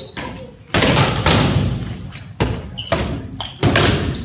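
Badminton rackets batting inflated balloons: about four thumps, each ringing on in the echo of a large hall.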